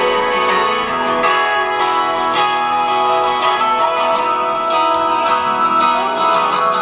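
Plucked-guitar music playing from a mini portable speaker, thin-sounding with almost no bass.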